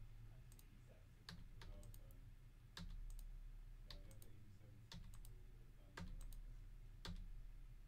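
Faint computer mouse clicks, about one a second, re-running an online list randomizer over and over.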